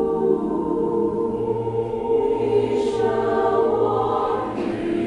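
Mixed choir of women's and men's voices singing a spiritual in held chords; the low men's voices come in about a second in, with a couple of soft sung 's' consonants near the end.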